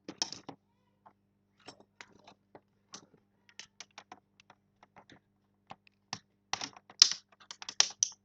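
Irregular sharp plastic clicks and taps as the Dell laptop's screen bezel is pried at and handled, the clips being worked loose. The clicks come in scattered runs, thickest and loudest about seven seconds in.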